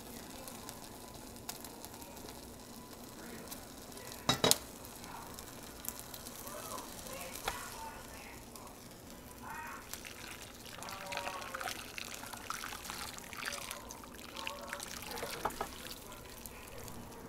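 Beef short ribs sizzling faintly in the pot under a freshly poured glaze, a light steady crackle, with one sharp knock about four seconds in.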